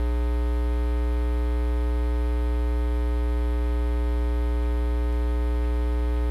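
Steady electrical mains hum with a dense buzz of evenly spaced overtones, unchanging throughout.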